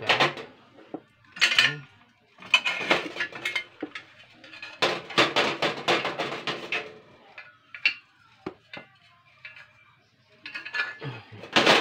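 Metal parts of a gas stove, its burner caps and black pan supports, clinking and clattering against the stainless-steel top as they are fitted onto the burners. The clatter comes in several bouts, with a few single clinks and a short lull late on.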